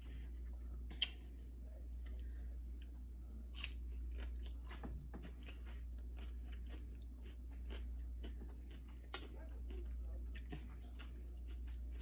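A person chewing and crunching tortilla-chip nachos with the mouth close to the microphone, in many irregular crunches, with a sharper crack about a second in, over a steady low hum.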